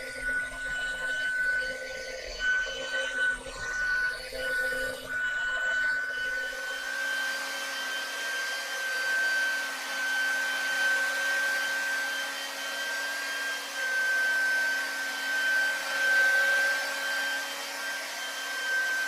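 Bissell carpet shampooer running: a steady high motor whine over the rush of its suction. A low rumble under it drops away about six seconds in.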